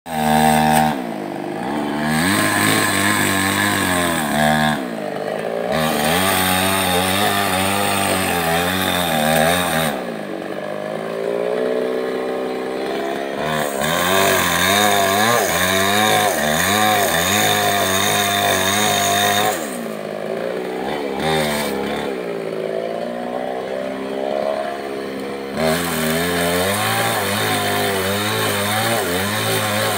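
Two-stroke chainsaw cutting into a felled tree trunk, its engine running at high revs under load with a wavering pitch. It drops back toward idle several times and revs up again.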